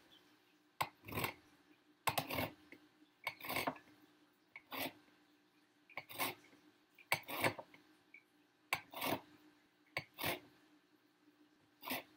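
An orange rind rasped across a fine-holed flat metal grater to take off the zest: about a dozen short scraping strokes, some in quick pairs, with brief pauses between them.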